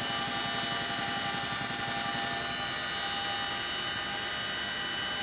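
CH-47 Chinook helicopter running steadily: a high turbine whine made of several held tones over the fast, even beat of its rotors.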